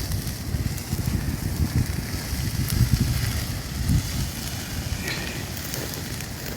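Forest fire burning, heard as scattered crackles over a heavy, fluttering rumble of wind on the microphone.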